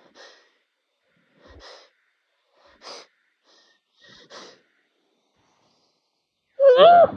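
A person's allergy sneezing fit: four short, sharp intakes of breath about a second and a half apart, then a loud voiced sneeze near the end.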